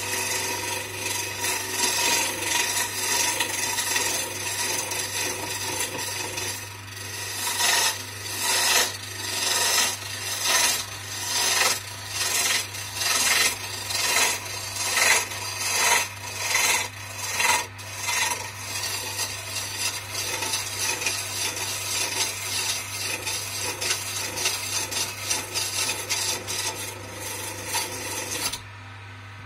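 A turning gouge cutting a spinning wooden spindle on a small wood lathe: a steady scraping as shavings peel off, over the lathe motor's low hum. Midway through the scraping swells and eases about once a second as the tool is worked along the piece, and near the end the cutting stops, leaving the hum.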